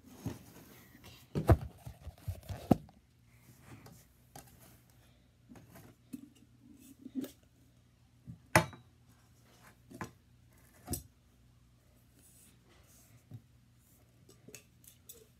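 Hands squeezing and pulling sticky homemade slime: wet clicks and pops, a quick cluster about two seconds in, then a few single sharper ones.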